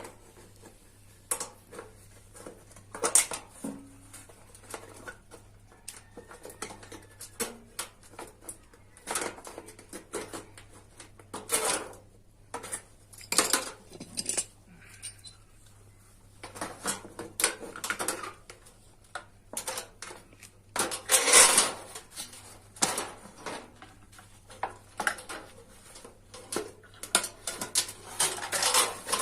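Irregular metallic clatter, knocks and scrapes of thin sheet metal and hand tools being handled and tapped, at no steady rhythm, over a faint steady low hum.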